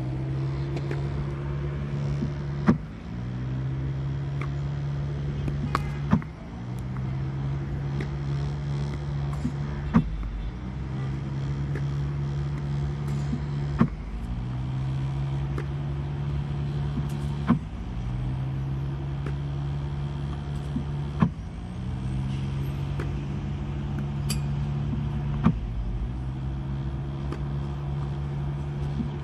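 Tennis ball launching machine running with a steady motor whir, firing a ball with a sharp pop about every four seconds, seven times; after each shot the motor's pitch dips and climbs back as it recovers speed.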